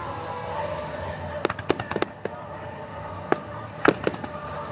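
Fireworks bursting overhead: a scattered string of sharp bangs, several in quick succession about one and a half to two seconds in and the loudest pair close together near the end.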